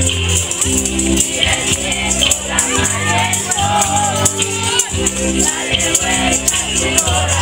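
A villancico (Spanish Christmas carol) playing over a steady bass line, with children's voices singing along and small hand tambourines jingling.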